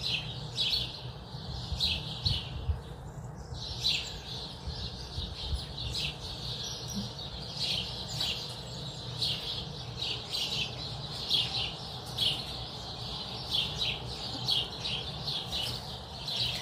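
Chorus of small songbirds, sparrows and tits among them, chirping and calling over one another in quick, high-pitched notes without a break.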